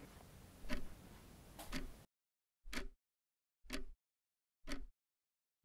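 A clock ticking, one sharp tick a second, starting about two and a half seconds in after faint background noise cuts out.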